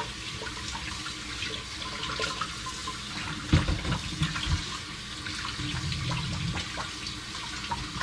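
Kitchen faucet running onto raw chicken pieces being rinsed by hand in a stainless steel sink: steady splashing, broken by small knocks as the meat is handled. A louder thump about three and a half seconds in.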